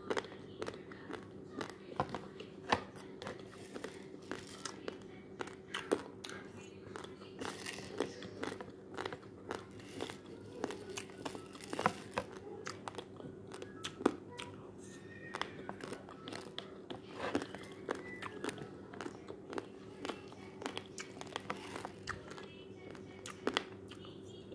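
Raw basmati rice grains crunching sharply and irregularly as they are chewed, mixed with clicks of a plastic spoon against a plastic container. A steady low hum runs underneath.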